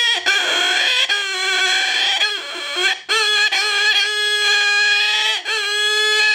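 Game call imitating a wild hog's squeal: a long, steady, pitched squeal broken by a few brief gaps. It is the sound of a hog that is upset.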